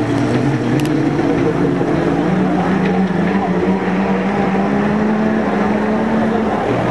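Autocross race trucks' engines running hard as they drive round a dirt track, several engines overlapping. The engine note holds steady, then falls near the end.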